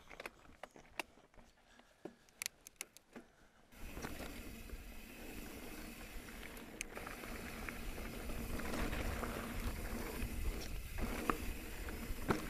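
Mountain bike riding a dirt track, heard from a handlebar-mounted camera: scattered light clicks and rattles at first, then from about four seconds in a steady rushing of tyres and wind that slowly grows.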